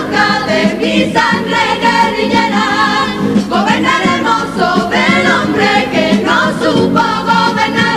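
Comparsa choir of mixed voices singing in chorus, accompanied by Spanish guitars and a bombo bass drum.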